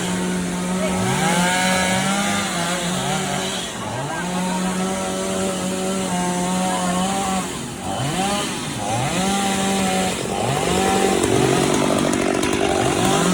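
Chainsaw running at high revs and cutting a fallen tree. Its engine note sags and climbs back again and again as the chain loads up in the wood and frees.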